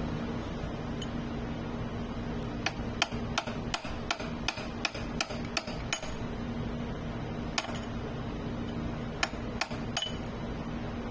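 Hammer tapping a steel punch against the gear shaft in a small dough mixer's gearbox, to knock the gear loose during a bearing change. There are about ten sharp metal taps in quick, even succession, then a few more spaced-out taps near the end.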